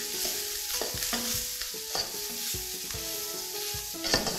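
Diced bacon and fresh shiitake mushrooms sizzling in a nonstick wok while a spatula stirs them, scraping and tapping against the pan now and then.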